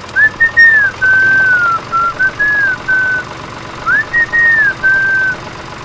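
A whistled tune: short sliding notes in two phrases, the second starting about four seconds in.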